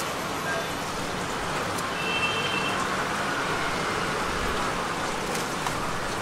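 Steady street background noise, a continuous traffic-like hum with no clear single source, and a faint brief high tone about two seconds in.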